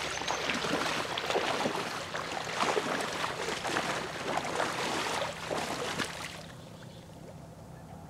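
A person in waders wading out through reeds into shallow water: splashing steps and rustling stems, which die down about six seconds in.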